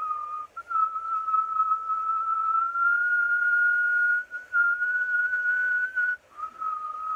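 A man whistling through pursed lips in long held notes on one clear pitch. The pitch creeps slowly upward, breaks off briefly about half a second in, around four seconds in and just after six seconds, and then settles back lower.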